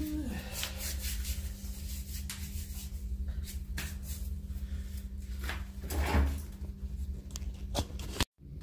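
Handling noise from a hand-held camera: scattered clicks and rubs, with a louder knock about six seconds in, over a steady low hum. The sound cuts out for a moment near the end.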